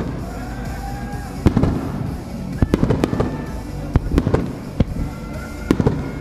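Fireworks display: aerial shells and low-level comets firing and bursting, with sharp bangs coming in clusters over a steady low rumble. Thin whistling tones sound between the bangs.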